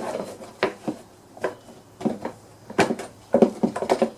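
Plastic cover of a mower's front drive being handled and snapped back into place: a series of separate clicks and knocks, about six over the few seconds, as its tabs are worked onto the deck.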